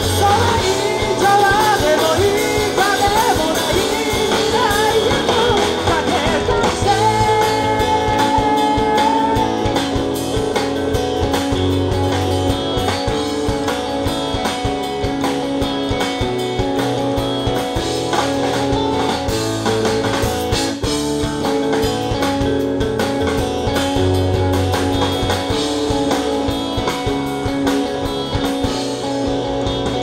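Live rock band playing: a male lead vocal over electric guitars, bass and drum kit for the first several seconds, then an instrumental passage of guitars, bass and drums with a steady beat.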